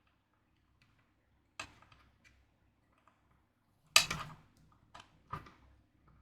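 A few sharp clicks and knocks as the parts of an outdoor electronics enclosure are handled and fitted, the loudest about four seconds in.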